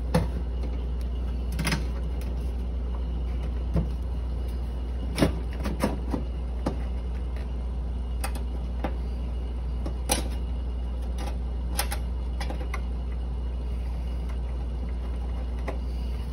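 Refrigerator compressor running with a steady low hum, charged with refrigerant. About ten light clicks and knocks are scattered over the hum, mostly in the first two-thirds.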